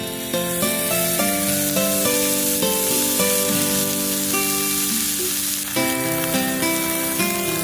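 Food sizzling in a hot pan, a dense, even hiss that fades about six seconds in, over background music of melodic notes.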